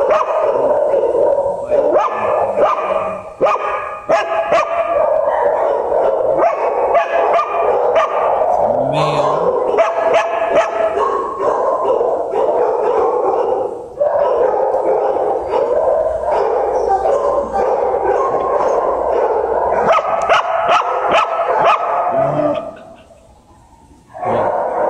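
Many shelter dogs barking at once in the kennels, a dense, loud, continuous din of overlapping barks, with a short lull near the end.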